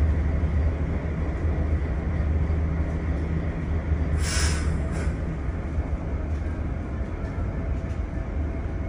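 Steady low engine rumble and hum with water rushing along a large ship's hull. A brief hiss sounds about four seconds in.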